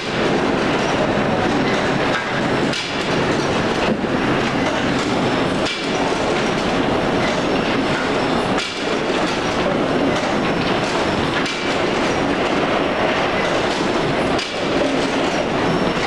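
Vegetable sorting line running: a loud, steady mechanical clatter from its conveyors and electric motors.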